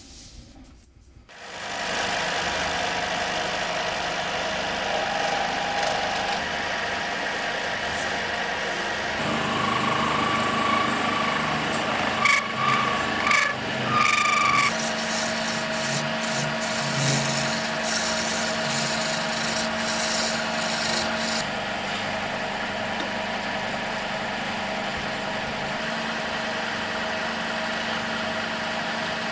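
Wood lathe turning a block of boxwood while a hand-held turning tool cuts into it: a steady rasping hiss of shavings being peeled off, starting about a second and a half in after a quiet moment. A few brief high squeals come from the cut around the middle.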